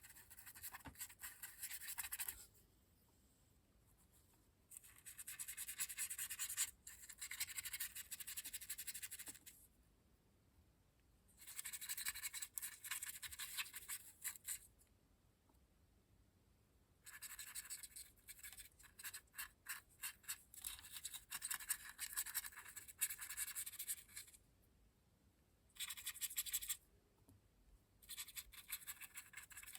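Brush bristles scratching over a model locomotive's bodywork as weathering pigment is worked on, in bursts of a few seconds with short pauses between, and a run of quick separate strokes about two-thirds of the way through.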